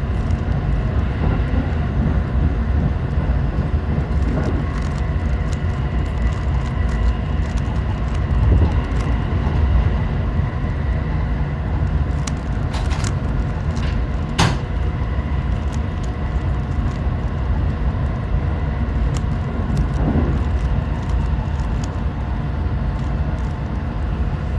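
Steady low rumble of a JR Central 313 series electric train running, heard inside the carriage. Scattered clicks of a Rubik's cube being turned sit over it, with one sharper click about fourteen seconds in.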